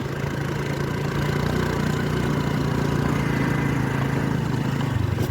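A vehicle engine running steadily, heard from on board while travelling.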